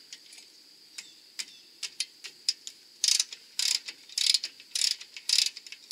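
Hand socket ratchet clicking as it turns a brake caliper bracket bolt: light scattered ticks at first, then about five quick back-and-forth ratcheting strokes in the second half.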